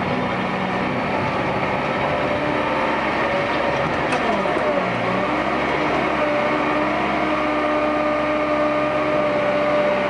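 Case 580 backhoe loader's diesel engine running steadily while the machine works, its pitch dipping briefly about halfway through and then coming back up.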